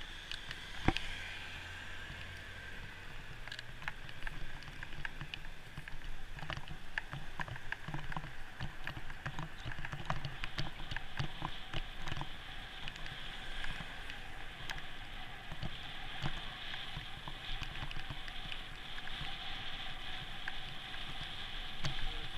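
Bicycle riding on a road, picked up by a bike-mounted action camera: a steady rush of wind and rolling noise with frequent small rattles and clicks, and one sharp knock about a second in.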